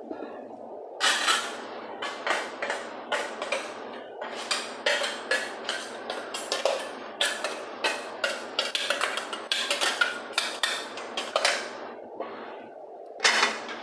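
Kitchen dishes and utensils clinking and clattering, with irregular sharp knocks about once or twice a second.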